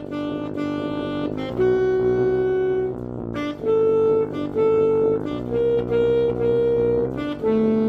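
Alto saxophone playing a melody of held notes over keyboard chords.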